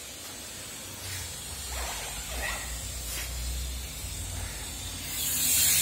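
A hand handling a cast-iron water-meter box lid: faint rubbing and scraping over a steady hiss, the noise growing louder near the end.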